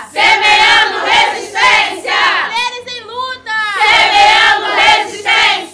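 A group of women's voices chanting loudly together, in phrases of about a second with short breaks between.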